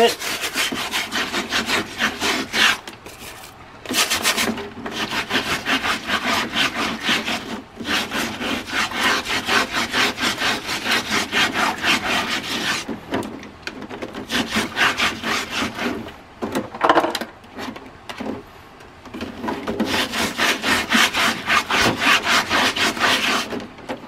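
A stiff bristle brush scrubbing a soaked air-conditioner intake filter in soapy sink water, with quick, steady back-and-forth strokes broken by a few short pauses, working off the last of the dust.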